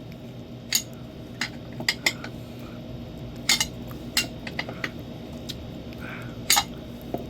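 Irregular sharp metallic clinks and taps from tools and metal parts being handled during an electric-unicycle tyre change, over a steady low hum.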